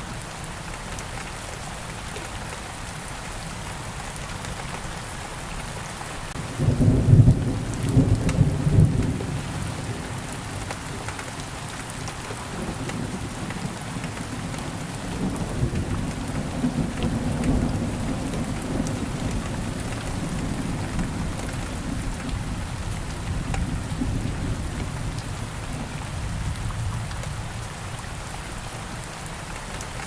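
Steady rain falling, with a loud clap of thunder about six and a half seconds in, followed by a long low rolling rumble that fades away near the end.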